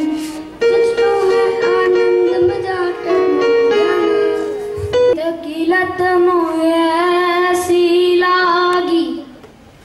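Casio electronic keyboard playing a slow melody of held notes. From about five seconds in, a child sings a long drawn-out line through a microphone, dropping away near the end.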